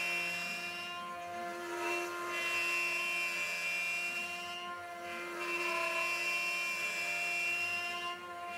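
Wood CNC router spindle running with its end mill cutting a contour in a wood board: a steady whine of several pitches that swells and eases every couple of seconds as the bit takes the cut.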